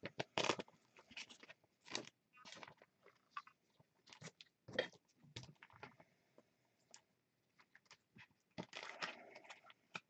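Short, irregular crinkles and scrapes of plastic as a baseball card is slid into a soft penny sleeve and a rigid plastic toploader by gloved hands, with a cluster of handling noise near the end.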